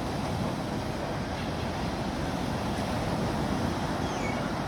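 Sea waves washing steadily against the shore, mixed with wind on the microphone.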